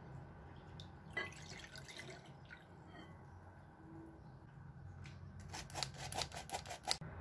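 Milk poured into a glass mixing bowl, splashing and dripping about a second in. Near the end comes a quick run of about nine rattling strokes from a metal flour sifter over the bowl.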